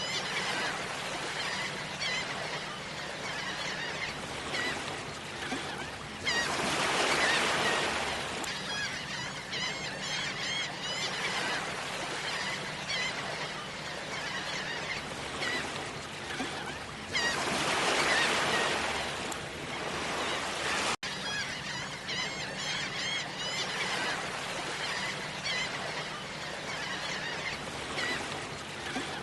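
Beach ambience: a flock of birds calling continuously over the wash of the sea, with waves surging in louder twice. There is a brief dropout about two-thirds of the way through.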